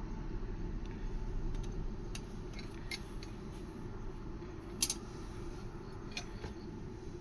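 Scattered light metallic clicks and ticks from copper pipe and fittings being handled, the sharpest just before the end, over a steady low rumble.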